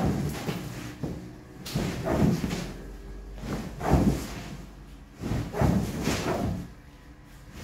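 A large artificial-grass mat being heaved up, folded and flapped down onto a tiled floor: a run of heavy swishing thuds, one about every two seconds.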